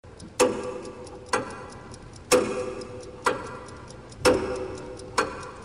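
Clock ticking as a sound effect, about one sharp tick a second, each tick followed by a short ringing tail.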